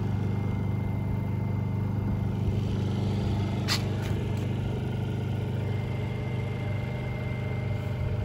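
A motor running steadily with a low, even hum. One sharp click sounds a little under four seconds in.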